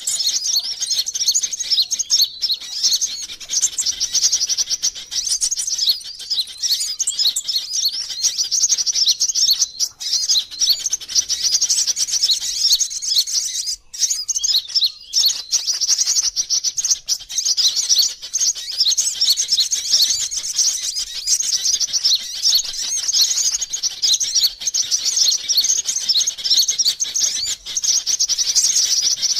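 Sunbird lure call: a dense, unbroken stream of rapid high-pitched chirps and trills, with brief breaks about 10 and 14 seconds in. It is the kind of recording played to draw wild sunbirds in.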